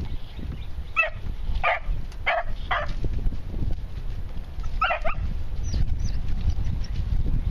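Young beagle hounds giving short, high barks and yips while working a brush pile: four quick calls, then one more a couple of seconds later.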